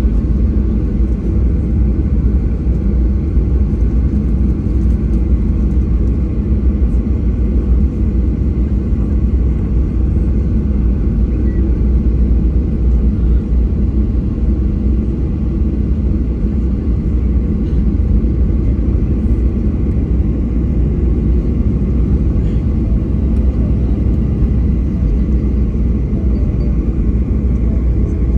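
Cabin noise of a KLM Boeing 737-700 taxiing after landing: a steady low rumble from its CFM56-7B engines at idle and the wheels rolling over the taxiway, heard from a window seat over the wing.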